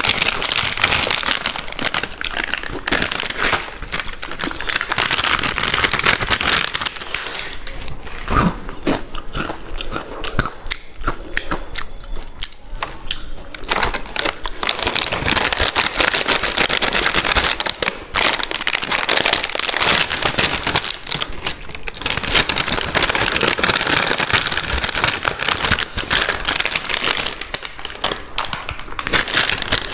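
Close-up crunching and chewing of Balaji potato wafers, with the crinkle of the chip packets.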